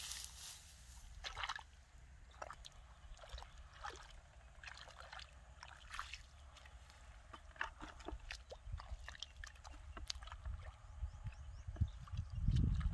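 Bare feet wading and stirring shallow muddy water, with irregular small splashes and sloshes. A heavier low splash comes near the end.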